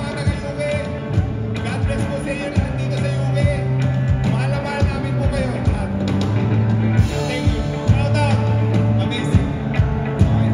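Live rock band playing: a bass guitar holding low notes, electric guitar and a drum kit keeping a steady beat, with a voice singing over them.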